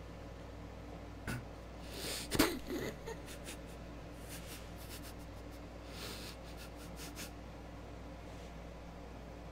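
A man chewing a mouthful of banana, with a short breathy snort through the nose about two seconds in and a few faint mouth clicks later, over a low steady hum.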